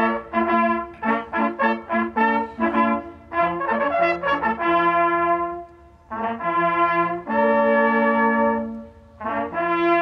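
Hunting horns blowing a brass fanfare over the laid-out game, the customary horn salute to the bag after a hunt. It starts with quick repeated notes for about three seconds, then moves to long held notes, and breaks off briefly about nine seconds in before starting again.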